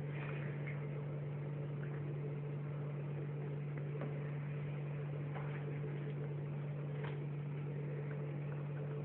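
Steady low hum with a faint background hiss, broken by a few faint light taps.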